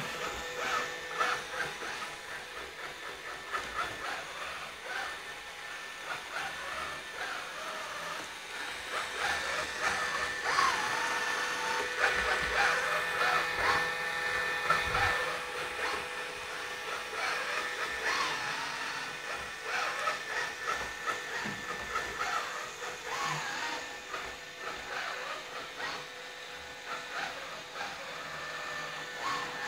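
Diunamai WD-G500 robot vacuum cleaner running: a steady whir from its suction fan with a steady whine, broken by frequent small clicks and knocks as it drives about.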